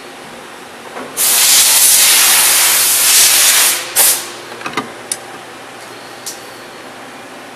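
Compressed air hissing in one loud blast of about two and a half seconds, then a second short blast, followed by a few light clicks.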